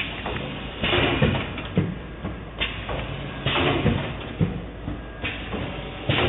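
Automatic PVC high-frequency welding machine running through its cycle: several short bursts of hiss with clunks, over a steady low hum.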